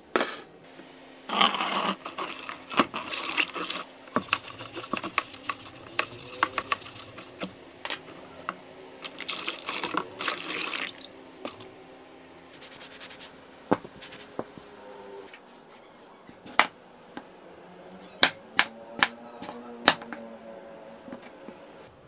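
Rusty steel cleaver blade being washed and scrubbed with water: several bursts of hissing spray and brushing in the first half, then a run of sharp clicks and taps.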